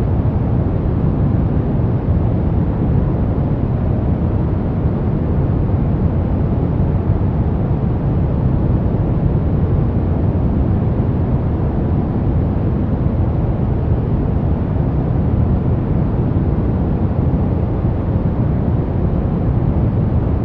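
Steady brown noise: an even, deep hiss with most of its weight in the low end, unchanging throughout.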